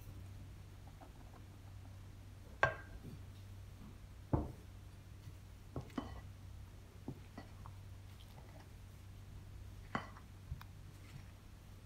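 A wooden spoon stirring flour into a wet dough in a mixing bowl, knocking sharply against the bowl's side at irregular intervals, over a low steady hum.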